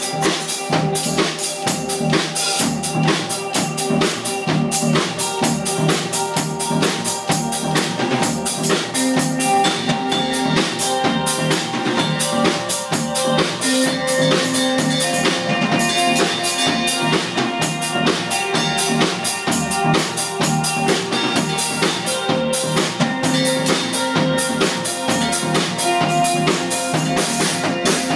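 A live band playing: a drum kit keeps a fast, busy beat under electric guitar, bass guitar and keyboards.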